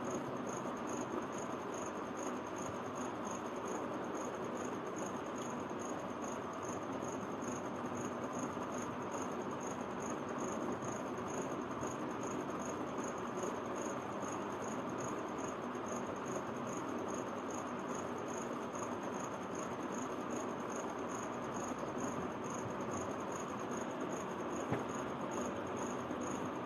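Steady background hiss with a continuous high-pitched, evenly pulsing chirp, and one small click near the end.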